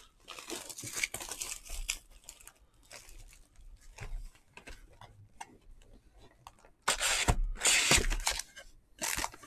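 Baseball card pack wrappers being torn open and crinkled in irregular short rasps, with the longest and loudest rip about seven seconds in.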